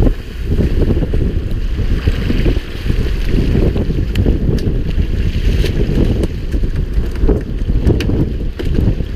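Wind buffeting the microphone on a boat at sea: a loud, gusting low rumble, with scattered light clicks and knocks.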